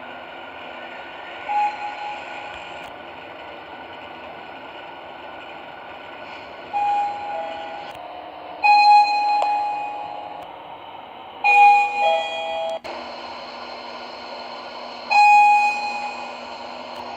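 Sigma elevator arrival chimes: an electronic 'ding' sounds about five times, sometimes a single note and sometimes a two-note falling 'ding-dong', over a steady background hum.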